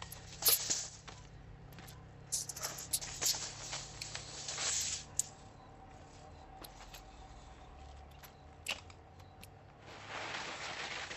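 Hand-tool work sounds: irregular knocks and clicks with short scraping noises, a longer stretch of scraping between about two and five seconds in and again near the end.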